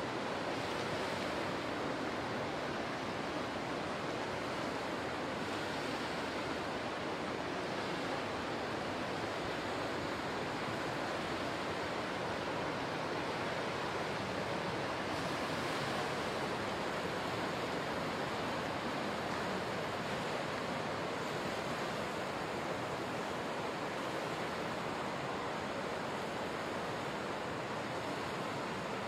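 Steady wash of small waves breaking on a sandy shore.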